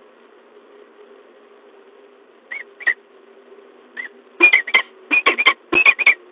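Peregrine falcon calling at the nest: a few single, spaced calls, then from about four seconds in a loud, rapid run of repeated calls.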